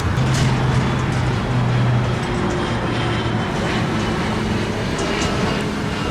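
Steady low engine hum of a heavy vehicle running close by, over a haze of road traffic noise.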